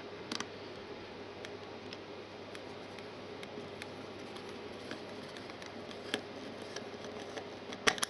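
Small screwdriver turning a screw into a plastic PIR sensor housing: faint, irregular ticks and clicks, with a sharper click near the end.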